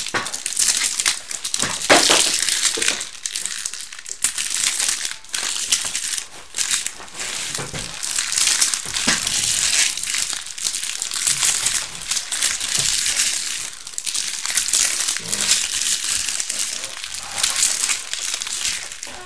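Trading-card pack wrappers crinkling and crackling continuously as they are handled and opened, with many quick irregular crackles.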